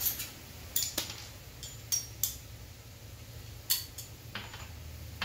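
A metal hand tool clinking against bolts on a motorcycle as a radiator-mounted bolt is worked loose: about eight short, sharp metallic clinks at uneven intervals over a low steady hum.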